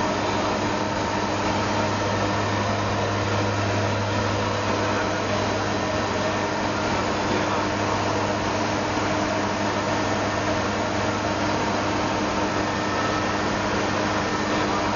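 Cabin drone of a military transport aircraft in cruise flight, heard in the cockpit: a steady low propeller and engine hum with several steady tones over an even rush of air noise.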